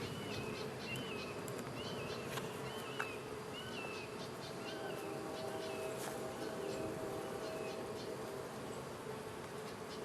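Honey bees buzzing around an opened hive, a steady even hum. Over the first half, a short high chirp repeats about twice a second.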